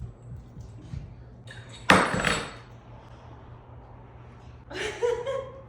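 A single sharp metallic clank about two seconds in, ringing briefly, like a metal bike part knocked or dropped. A short voice sound follows near the end.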